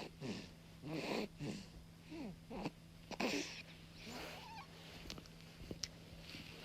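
A newborn baby making a string of short squeaky grunts and snuffly noises, each falling in pitch, typical of an infant's noisy breathing in sleep; they come thick at first and space out after about three seconds.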